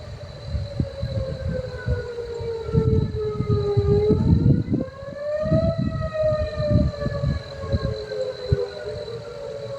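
Outdoor tornado warning siren wailing, its pitch slowly falling, rising about halfway through, then falling again, over a low, gusty rumbling.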